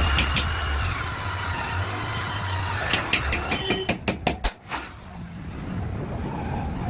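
Electric power tool motor running steadily, with a quick run of sharp clicks or knocks about three to four and a half seconds in.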